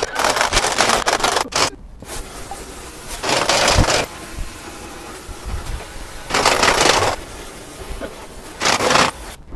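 Impact wrench running in four short bursts as it undoes the wheel nuts on a truck axle's wheels.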